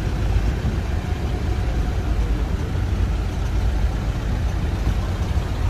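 Steady low rumble of engines aboard a car ferry.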